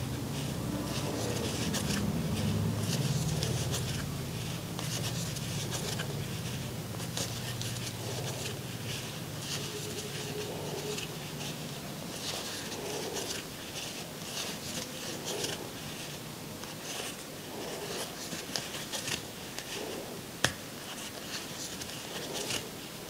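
Crochet hook and acrylic yarn rustling as single crochet stitches are worked, short irregular scratchy strokes of yarn pulled through loops. A low hum sits under the first half and stops about halfway through.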